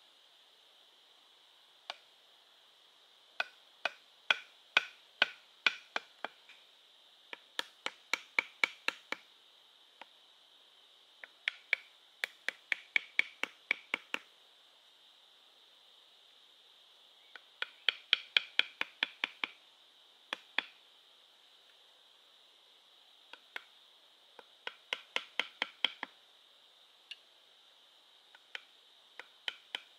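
Sharp knocks of a hand tool striking wood, in bursts of six to ten strokes about three a second with short pauses between. A steady high-pitched drone runs underneath.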